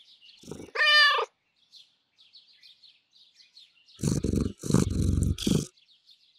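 A domestic cat gives one meow about a second in, then purrs loudly in a short burst of three quick pulses about four seconds in. Faint high chirping runs underneath.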